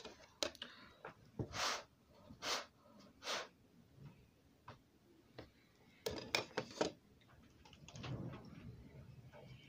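Handling noise close to a phone's microphone: a string of short knocks and taps, some brushing swishes in the first few seconds, a quick cluster of taps about six seconds in and a soft rustle near the end.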